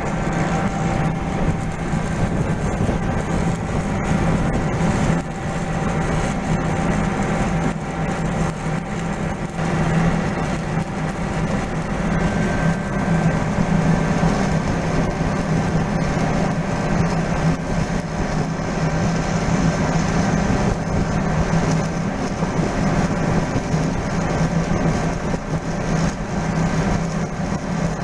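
Steady, loud machinery drone with a low hum, like an engine or motor running continuously.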